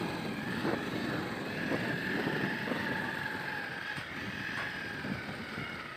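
Motorcycle running along a rough, rocky dirt road: a steady engine-and-road noise with a faint steady whine, and a few brief knocks and rattles from the bumps.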